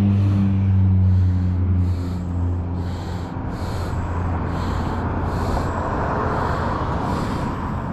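A low engine hum from a passing motor vehicle fades away over the first three seconds, leaving a steady rushing noise with soft ticks about twice a second.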